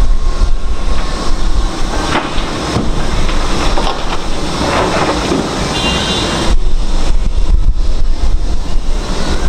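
Wind buffeting the microphone, with the mixed noise of a demolition site beneath it. The gusts ease through the middle, where the site noise comes forward, and pick up again about two-thirds of the way through.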